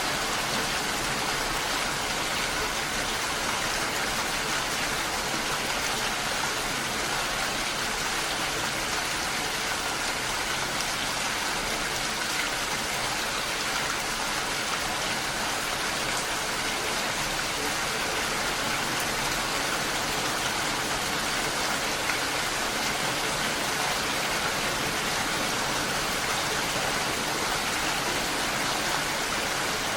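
Steady rain falling, an even hiss of many drops without pauses or changes in strength.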